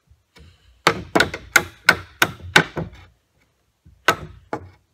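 Hammer blows on wood: six sharp strikes at about three a second, a short pause, then two more, knocking off a small piece of the board.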